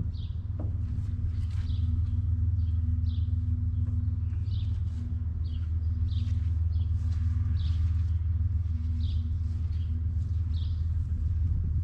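Steady low rumble with a faint even hum, and a small bird chirping over it about once a second.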